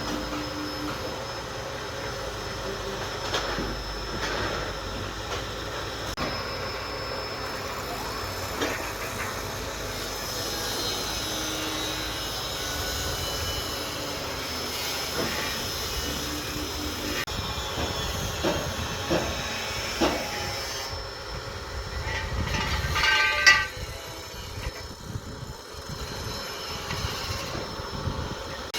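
Heavy machinery running steadily, with scattered metallic knocks and a brief loud squeal about 23 seconds in.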